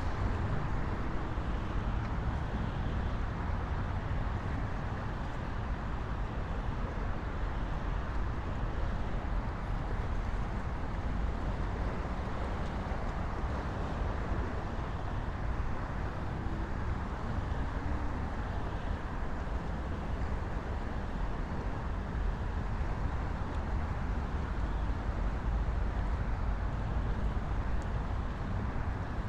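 Steady rumble of traffic on the adjacent Shore (Belt) Parkway, an even wash of road noise with no single vehicle standing out.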